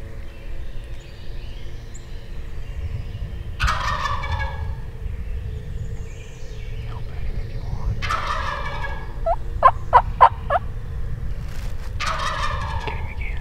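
Wild turkey gobbler gobbling three times, about four seconds apart, each gobble a rapid rattling call. Just after the second gobble comes a quick run of about five short, sharp notes, the loudest sounds here.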